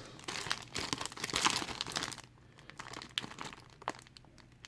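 Crinkling and tearing of packaging as a taped-up mail package is pulled open by hand. Busy crackling for about the first two seconds, then a few scattered crinkles.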